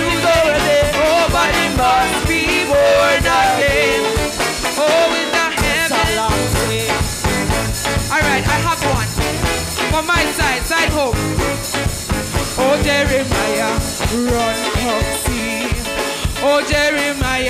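Congregation singing a gospel chorus together, accompanied by a band with a steady drum beat.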